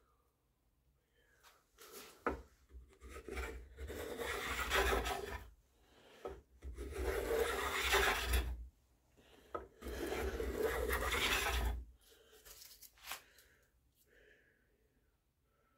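A hand-held sanding block rubbed back and forth along the wooden rifle stock, in three spells of a few seconds each with short pauses between, stopping about twelve seconds in.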